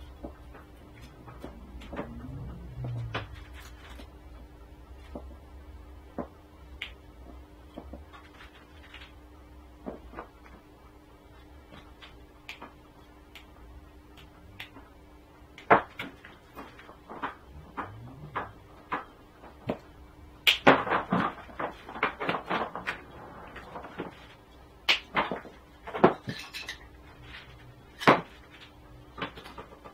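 Small clicks, taps and clinks of coax cable fittings and hand tools being handled on a workbench, with a busier stretch of clatter about two-thirds of the way through. A faint steady hum runs underneath.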